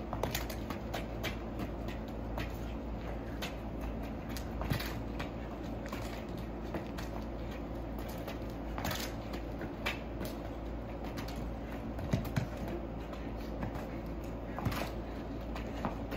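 Soccer ball being dribbled on pavement: irregular light taps of sneakers on the ball and shoes scuffing the ground, over a steady low background noise.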